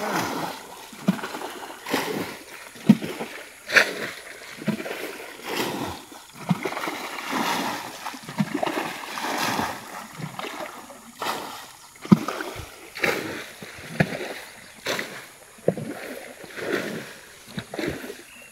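Muddy pond water being bailed out with a rope-swung bucket: repeated splashing and sloshing, about one stroke a second.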